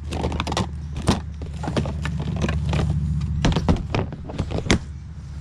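Household items being handled and moved about, with irregular knocks and clatters, several of them sharp, over a steady low hum.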